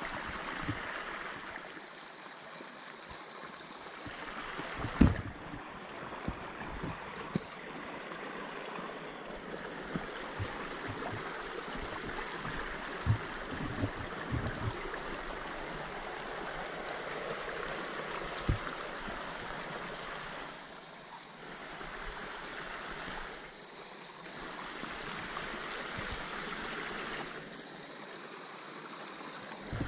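Small creek running over rocks, a steady rushing hiss, with a few short thumps scattered through it, the loudest about five seconds in.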